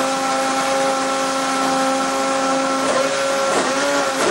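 McLaren Formula 1 engine running on the stand, held at very high revs with a steady, high-pitched whine; near the end the pitch dips briefly a few times and picks up again as the throttle is eased and reopened.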